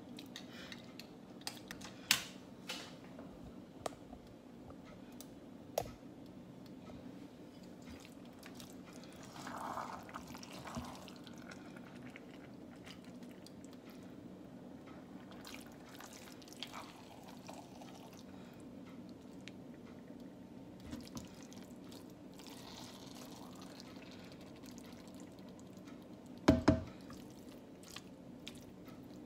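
A spatula scooping thick egusi soup from a pot onto a plate: wet squelching and scattered clicks and scrapes, with a loud double knock near the end as the spatula strikes the pot or plate. A steady low hum runs underneath.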